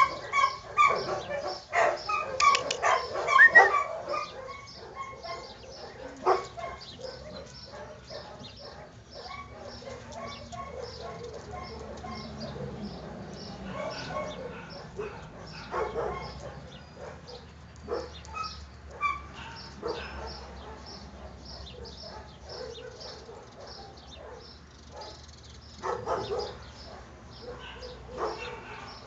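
Dogs barking and yipping, thickest and loudest in the first few seconds, then scattered fainter barks with a few louder clusters.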